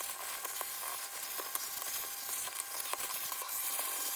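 Vacuum cleaner running steadily as it sucks dust off a MacBook's bottom cover: an even hiss with a faint steady whine and scattered small ticks.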